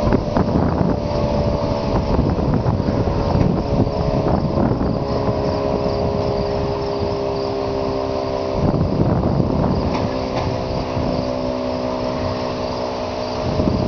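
Federal Signal 3T22 three-tone outdoor warning siren sounding a steady chord of several tones, with wind buffeting the microphone. Part of the chord changes about two thirds of the way through.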